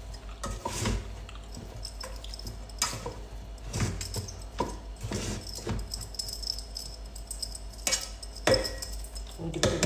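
Scattered light clicks, knocks and rattles of small objects being handled.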